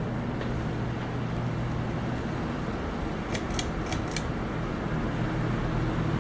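Many ceiling fans running together: a steady rush of moving air over a low motor hum, with a quick cluster of four or five sharp clicks about three and a half seconds in.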